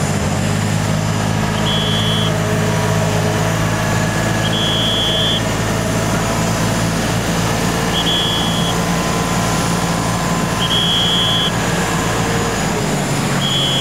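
Warning beeper on a self-propelled airport passenger stair truck as it drives into position: a high beep of about half a second, five times, roughly every three seconds, over a steady low engine hum.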